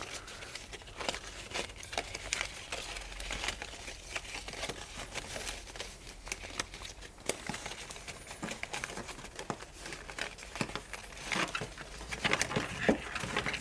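Birch bark strips crackling and rustling as hands handle them and pull them through one another, with many small clicks and scrapes that grow busier near the end.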